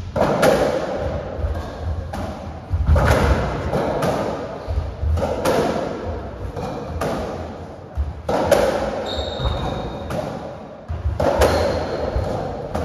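Racketball rally on a squash court: the ball is struck by racquets and hits the walls, the hits coming in close pairs every two to three seconds, each ringing briefly in the enclosed court.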